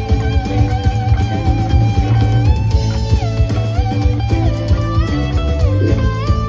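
Live rock band playing an instrumental passage with electric guitars, bass guitar and drum kit, a lead electric guitar holding long notes and sliding between them.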